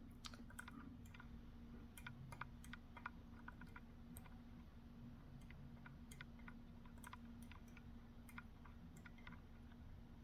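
Faint, irregular clicks of a slimline pick working the spring-loaded pins of a BiLock NG lock, made while the pins are cycled over and over to coax the sidebars in.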